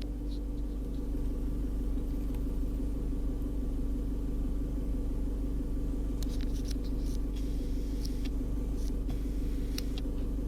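Car engine idling, heard from inside the cabin: a steady low hum, with a few faint short clicks in the second half.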